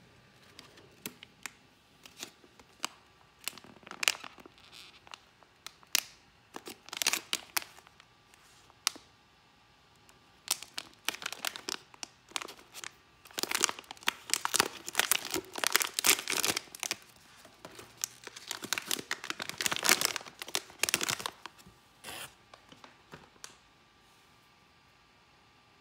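Plastic blind bag crinkling and being torn open by hand: a run of sharp crackles that comes and goes, busiest in the second half and stopping a couple of seconds before the end.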